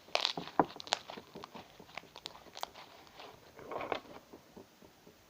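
Hands squeezing and working a batch of homemade slime, giving irregular sticky clicks and crackles, thickest in the first second with another cluster near four seconds, then dying away.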